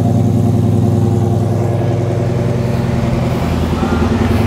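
Ford Gen 3 Coyote 5.0 L V8 running steadily through stainless dual exhaust pipes. The note changes about three seconds in as the truck pulls away.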